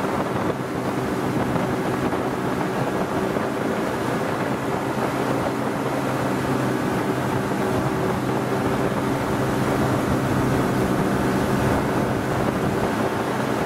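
Three Evinrude 300 two-stroke outboard motors running steadily at speed under the load of towing a long line of water skiers. The rush of the churning wake and wind buffeting the microphone are mixed in.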